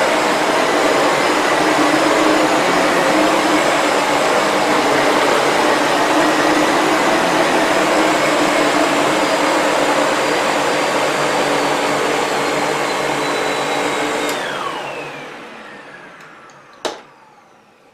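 Sebo Felix upright vacuum cleaner running on a shag rug with its powerhead brush, a steady whine over rushing air. About fourteen seconds in the motor is switched off and its whine falls in pitch as it spins down, followed by a single sharp click near the end.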